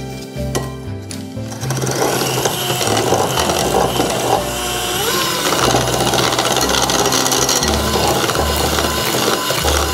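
Electric hand mixer running, its beaters whipping runny egg-and-sugar lemon filling in a glass bowl; the motor starts about a second and a half in and then runs steadily, with background music underneath.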